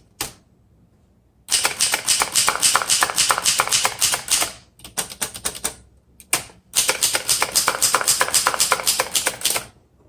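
A 1938 Remington Portable Deluxe manual typewriter is being typed on in two runs of fast keystrokes, each about three seconds long. Each type bar hits the paper with a popping sound: the machine has no bar holding the paper tight to the platen, so the air gap between paper and roller pops on every strike.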